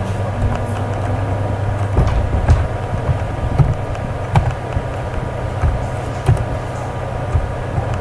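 Steady low hum, with a handful of scattered single clicks of slow typing on a computer keyboard.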